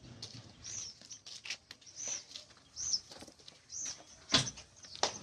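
A bird chirping, short high calls repeated about once a second, with two sharp knocks near the end.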